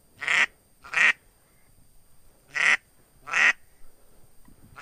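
A handheld duck call blown in quacks: two pairs of loud, short quacks, the second pair about two and a half seconds after the first, used to call in passing ducks.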